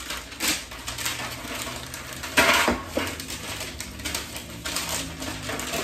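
A sheet of paper liner rustling and crinkling as it is handled over an aluminium baking pan, with light clatter against the metal pan; the loudest rustle lasts about half a second, a little after two seconds in.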